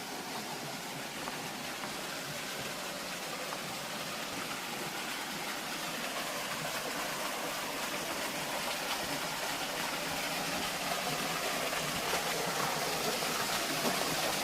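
Rushing stream water, a steady rush that grows gradually louder.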